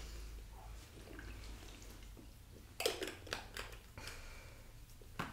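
Quiet sounds of a person drinking from a plastic sports water bottle: faint swallowing and handling of the bottle, with a brief louder sound about three seconds in.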